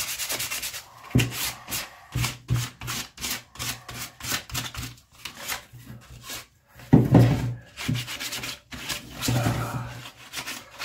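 Sandpaper, 180 grit, rubbed by hand over a stained wooden carving in quick, irregular back-and-forth strokes with a couple of brief pauses. It is knocking back the stain on the high points to lighten them. A few duller knocks are mixed in.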